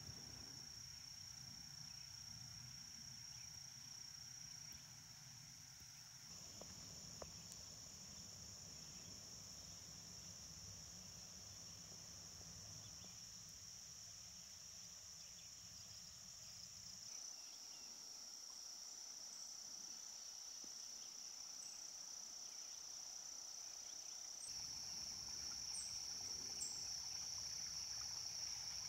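Faint insect chorus: a steady, unbroken high-pitched drone. Beneath it a faint low rumble stops about two-thirds of the way through.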